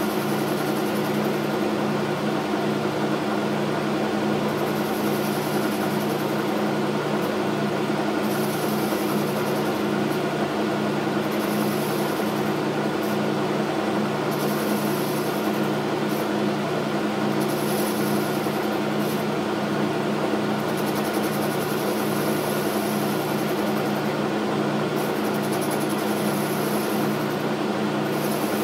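Logan metal lathe running steadily, its drive humming with a regular low beat about once a second. A tool bit is taking a light cleanup cut on a part spinning in the chuck, and a high hiss comes and goes every few seconds.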